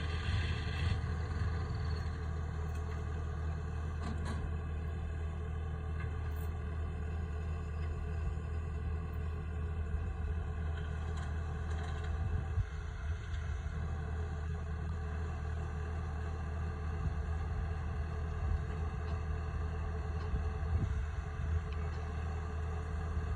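Combine harvester's diesel engine running steadily under load, a low, even drone.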